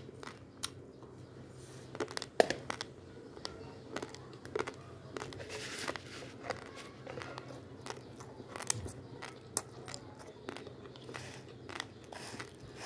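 Dry raw basmati rice handled with a plastic spoon in a plastic bowl: scattered sharp clicks and crunches, and a short rustle of grains being stirred about six seconds in.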